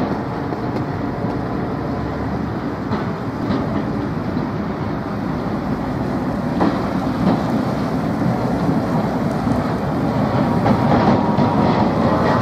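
Old 'Muki' freight tram rolling along a street track toward the listener, a steady rumble of wheels on rails with a few sharp clicks, slowly growing louder as it nears.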